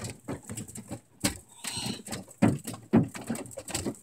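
Golf-ball-sized hail hammering the metal of a pickup truck and camper, heard from inside the cab as irregular hard knocks, some much louder than others.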